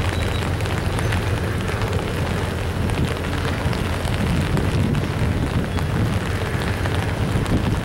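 Double-stack intermodal freight cars rolling slowly over a steel girder bridge: a steady low rumble with scattered small clicks from the wheels and rail.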